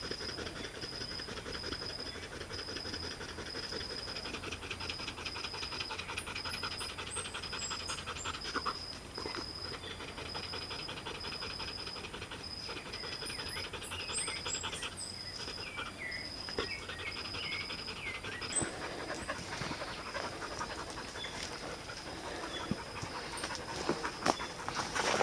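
A dog panting. Throughout, there is a steady, evenly pulsed high trill, with a few short high chirps over it and some sharper clicks near the end.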